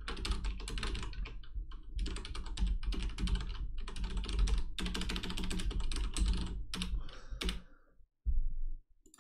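Typing on a computer keyboard in quick runs of keystrokes while filling in form fields, ending in a few separate key or mouse clicks. A short dull low thump follows near the end.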